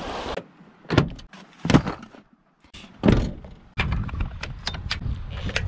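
Clicks and knocks of plastic roof-rack rod-holder clamps as fishing rods are clipped in, a few sharp snaps, then steady wind on the microphone with lighter ticks from about four seconds in.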